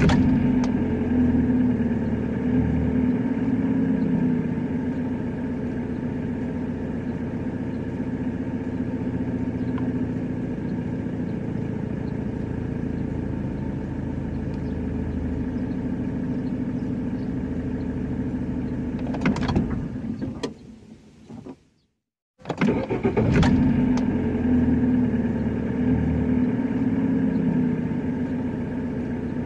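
A car engine starting and then running steadily. It fades out and cuts to silence about 21 seconds in, then starts up again a second later in the same way.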